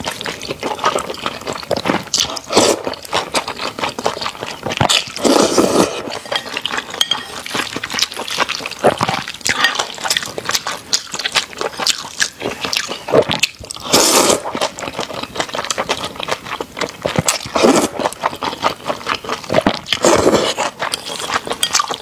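Close-miked eating of wide flat noodles: wet chewing and mouth clicks throughout, with a louder slurp every few seconds.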